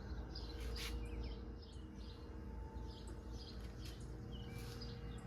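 Faint scattered bird chirps over a low steady hum.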